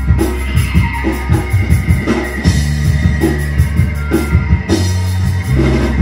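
Live rock band playing an instrumental passage: a drum kit keeps a steady beat under a bass line, electric guitars, accordion and melodica, with a long held high note over the top.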